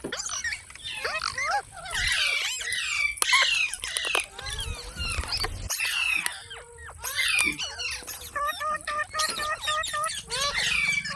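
Pet green parrot chattering and squawking: a fast run of chirps, whistles and screechy calls that bend up and down in pitch, with a quick string of evenly repeated notes near the end.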